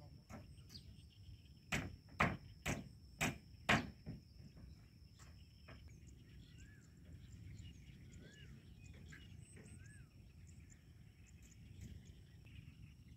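Rural outdoor ambience: five sharp knocks about half a second apart near the start, a steady high insect tone, and a short bird call heard three times over a low background hush.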